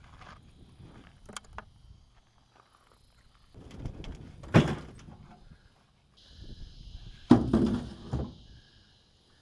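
Two heavy thunks about three seconds apart, each after a second or so of scraping and rustling, the second followed by a few rattling knocks. A steady high buzz starts about six seconds in.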